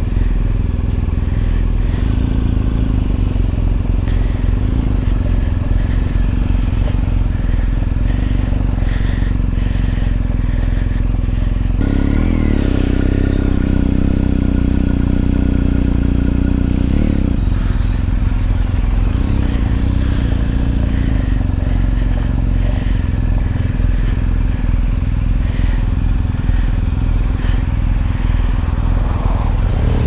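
BMW R1250 GS boxer-twin engine running at low speed, its note steady, growing stronger for about five seconds in the middle before settling back.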